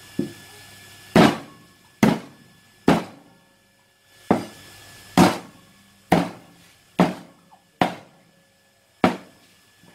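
Knife chopping raw chicken pieces on a thick round wooden chopping block: about ten sharp chops, roughly one a second and unevenly spaced.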